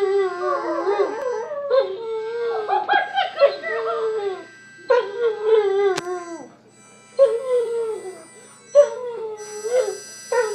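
Weimaraner howling along to harmonica notes played from a smartphone app. She gives a series of drawn-out howls, each sliding down in pitch, with short breaks between them.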